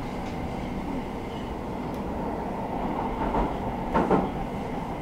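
Stockholm metro train running, heard from inside the passenger car: a steady rumble of wheels on rail, with two louder clunks about three and four seconds in.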